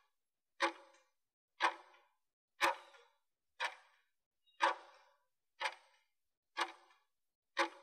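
Interval timer's clock-tick sound effect ticking once a second, eight short ticks, counting down the final seconds of a 20-second exercise interval.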